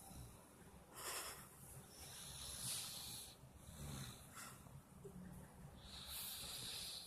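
A sleeper snoring: several high, hissy breaths a second or two apart, the longest about two seconds in and another near the end.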